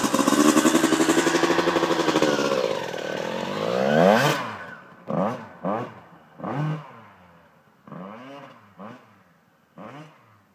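Honda CR125 two-stroke dirt bike engine revving hard, climbing to a peak about four seconds in. It is followed by a string of short throttle blips, each rising and falling in pitch, growing fainter toward the end.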